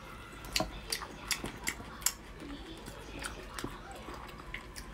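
Close-miked chewing of soft red-braised pork belly: a string of short, wet mouth clicks and lip smacks at an uneven pace.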